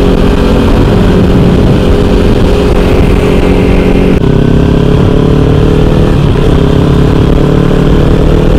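Kawasaki Ninja 300's parallel-twin engine running while riding, its pitch dropping at an upshift about four seconds in, then slowly rising as the bike picks up speed.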